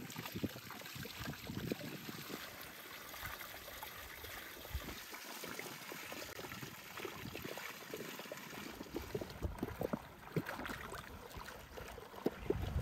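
Spring water pouring and splashing from a spout into a stone basin, with short irregular splashes and knocks as large pumpkins are set down and rinsed in the water.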